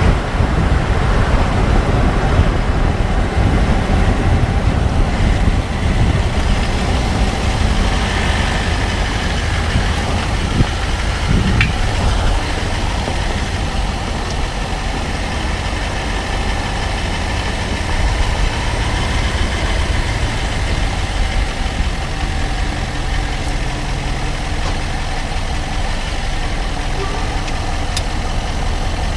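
A 2014 Range Rover Sport SDV8's 4.4-litre V8 diesel running with a steady low rumble. A few faint ticks stand out, around a third of the way in and again near the end.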